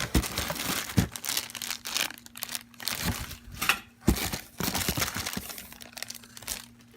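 Packing material crinkling and rustling as a new bench grinder is lifted out of its box, with a few sharp knocks among the irregular crackling.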